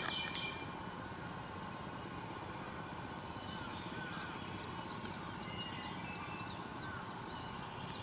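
Several wild birds calling: short high chirps and quick falling whistles, over a steady background hiss.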